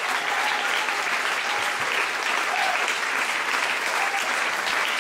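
Audience applauding steadily, a dense crackle of clapping, with a few faint voices calling out.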